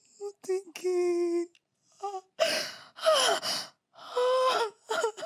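A woman moaning and gasping in distress: a short pitched moan in the first second and a half, then several breathy gasps.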